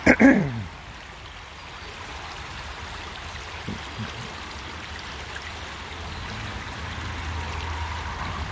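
Creek water running in a steady rush. In the first moment there is a short, loud sound with a falling pitch, like a brief voice.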